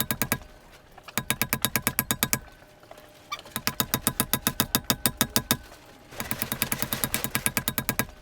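Rapid, even metal-on-metal tapping, about ten strikes a second, in three runs of one to two seconds with short pauses between. It is a new valve guide being driven into a Yanmar 2GM diesel cylinder head through the old valve and a socket.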